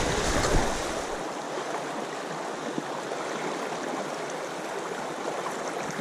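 Shallow river riffle rushing steadily over cobbles. A low rumble on the microphone sits under it for about the first second.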